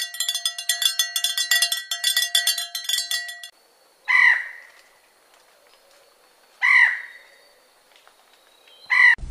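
A cowbell clanking rapidly and steadily, cutting off about three and a half seconds in. Then a peacock (Indian peafowl) gives three loud calls, about two and a half seconds apart.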